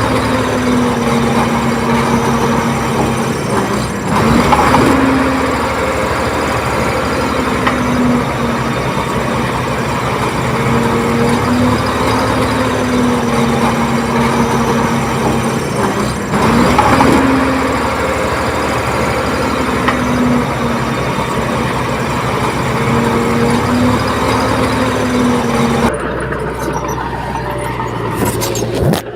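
A bulldozer's diesel engine running steadily under load. Its note swells briefly twice, and the sound changes abruptly near the end.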